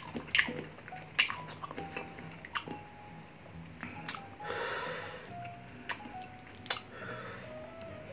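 Close-miked mouth sounds of chewing green mango with shrimp paste: wet squishing and sharp clicks, with a longer noisy crunch about halfway. Light background music with a few held notes plays underneath.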